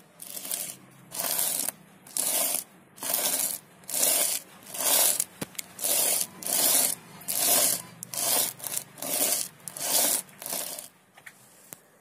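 Small teak wood block hand-sanded on flat sandpaper: about a dozen rasping back-and-forth strokes, roughly one a second, stopping near the end.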